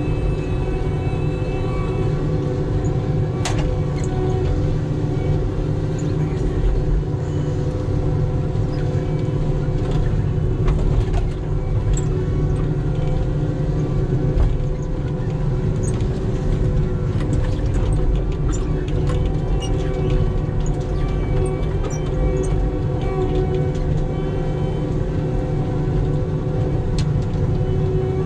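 John Deere 748 grapple skidder's diesel engine running steadily under load as the machine drives along a wet skid road, with scattered light knocks and rattles.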